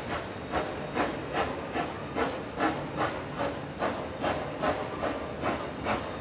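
Queensland Railways BB18¼ class steam locomotive working, its exhaust chuffing in an even rhythm of about two and a half beats a second over a steady hiss.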